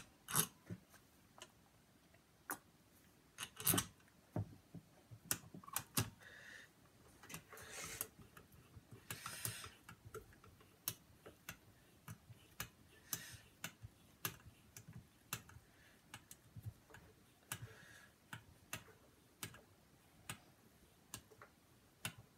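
Faint, irregular small metal clicks of case screws and an Allen key being handled by hand, with a few brief rustles.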